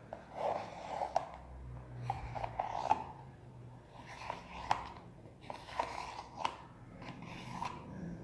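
Quiet handling of a spoon and a container as foam is spooned into the slime bowl: several soft clicks and taps scattered through, with brief soft scraping and rustling between them.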